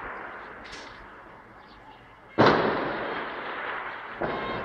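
Heavy gunfire: a loud single report about two and a half seconds in that rings out in a long echoing tail, and a smaller sharp crack near the end, with the echo of an earlier shot fading at the start.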